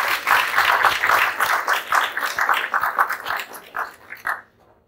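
Audience applauding, the clapping thinning out to a few last claps and dying away shortly before the end.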